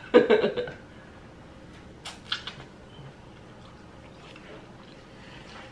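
Person eating noodles: a short, loud mouth sound as a forkful goes in, then quiet chewing with a few wet clicks about two seconds in.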